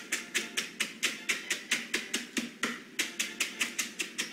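Rapid, even pounding, about five blows a second, of a utensil crushing dry food into crumbs inside a plastic zip-top bag on a tabletop.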